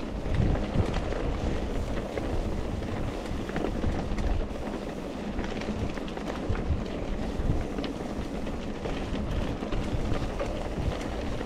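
Mountain bike rolling along a gravel trail, heard from a rider-worn camera: wind rumble on the microphone, with tyres crunching over the stones and a scatter of small rattles and clicks from the bike.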